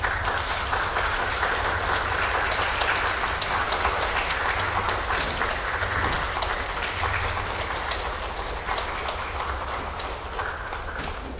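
Audience applauding, a dense steady clapping that starts suddenly and eases off a little toward the end.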